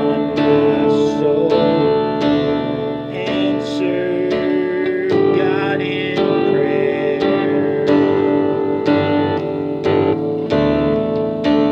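Music: acoustic guitar playing, plucked and strummed chords with a steady beat.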